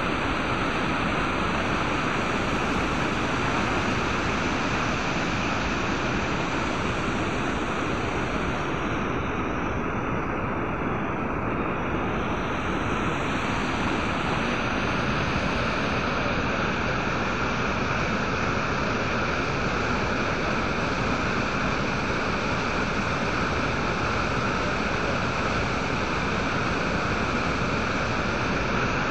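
Muddy floodwater rushing over rocks and pouring over the edge of a road in a small cascade, a steady unbroken rush.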